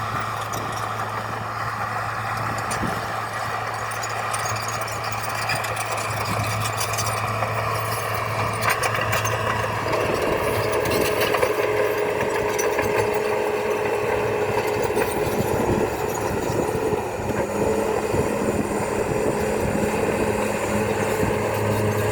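Komatsu D51EX crawler bulldozer's diesel engine running steadily while it works, with scattered light clatter. About ten seconds in, a higher whine joins the engine note and holds, and the sound grows a little louder.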